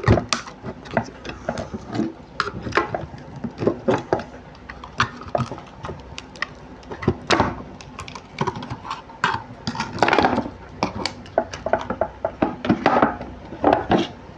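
An LED flood light's glued-in driver being pried out of its housing with a tool: a run of irregular clinks, knocks and scrapes, with longer scraping spells about ten seconds in and near the end.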